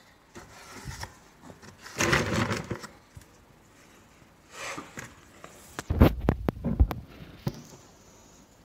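Handling noises: rustling, then a quick run of knocks and clicks from about six seconds in.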